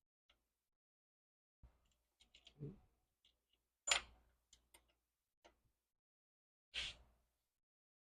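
Scattered light clicks and taps of tools and metal bike hardware being handled while a rear wheel and derailleur hanger are fitted, with two sharper clacks about four and seven seconds in.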